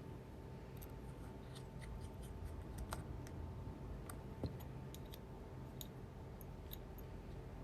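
Faint small ticks and scrapes of a precision screwdriver and tiny screws being driven back into the iPhone 11 Pro Max's internal metal cover plates, over a steady low hum.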